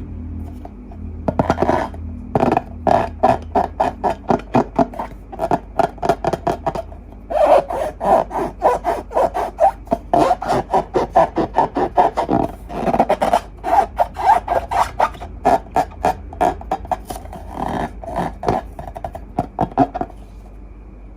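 Hands squeezing and rubbing soft rubbery material in quick repeated strokes, about three to four a second. The strokes start about a second in and stop shortly before the end.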